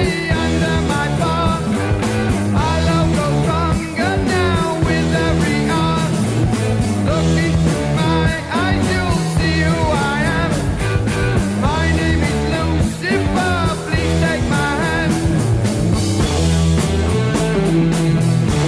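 Rock song with a steady beat, guitar and singing.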